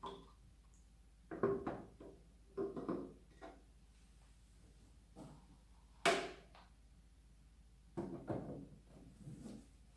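Irregular knocks and clatters of hard objects being handled and set down: short groups of sharp hits just after 1 s, around 3 s, about 6 s (the loudest, a single sharp knock) and around 8 s.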